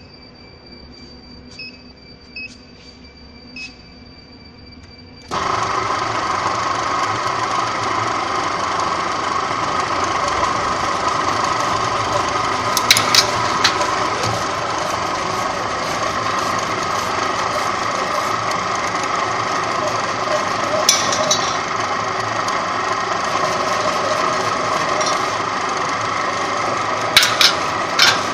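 Furring channel roll forming machine starting up about five seconds in and then running with a loud, steady mechanical noise from its drive and forming rollers. A few sharp metallic strikes stand out over it, the last two near the end.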